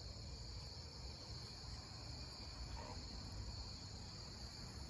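Night insects, crickets, calling in a steady high drone, with a faint low rumble underneath.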